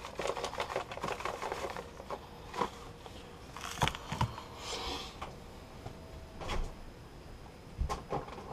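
A plastic shaker of garlic salt is shaken over a steel mixing bowl, a quick run of rattling taps for about two seconds. A few scattered knocks and clicks follow, and near the end a refrigerator door is pulled open with a click.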